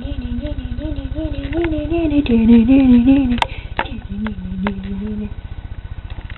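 A young woman singing without clear words in a wavering, sliding voice, holding drawn-out notes, over a steady low hum.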